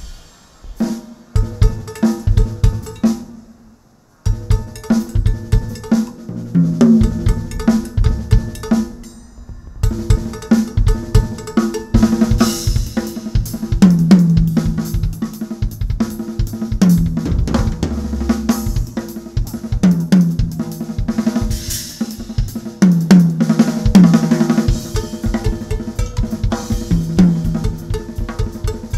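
Solo drum kit played fast: dense snare, tom and bass drum strokes with cymbal crashes and rolling tom fills. Playing breaks off briefly about three seconds in, then resumes.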